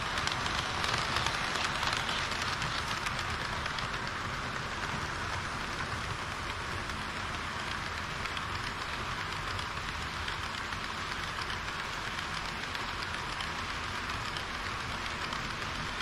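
HO-scale model trains, a KiHa 40 series railcar set and an EH200 electric locomotive with tank wagons, rolling along sectional track. Their metal wheels make a steady hiss and rattle on the rails with a dense crackle of small clicks, a little louder in the first couple of seconds.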